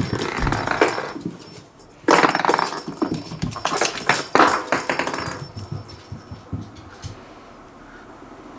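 Cat hissing in threat: a hiss fading out about a second in, then a longer, louder run of hissing from about two seconds in until about five and a half seconds.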